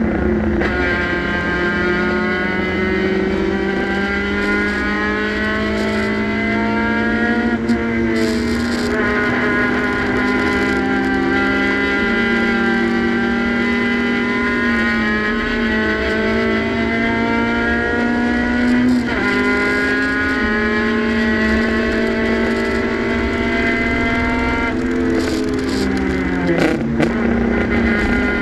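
Hill-climb race car engine heard from inside the cockpit at full throttle, its pitch climbing steadily and then dropping at each upshift, several times over. Near the end the pitch falls quickly in a couple of steps as the car brakes and changes down.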